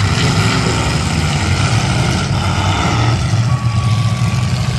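Engines of big-car demolition derby cars running: a loud, steady low engine drone with noise over it.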